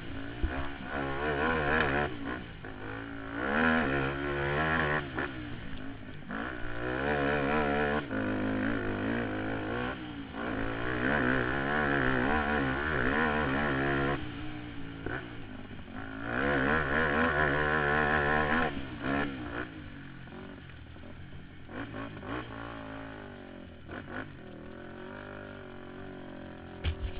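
Suzuki LT-Z400 quad's single-cylinder four-stroke engine under hard riding, repeatedly revving up and dropping off as the throttle is opened and shut and gears change. The last several seconds are quieter and lower-pitched.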